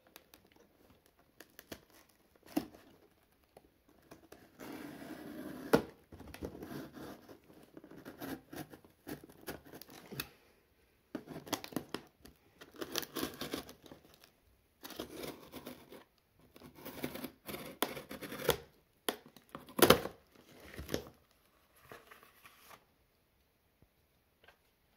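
Cardboard shipping box being cut open with a utility knife: a series of rasping strokes, each a second or two long, as the blade slices through the cardboard and packing tape. There is cardboard tearing and a few sharp knocks, the loudest about twenty seconds in.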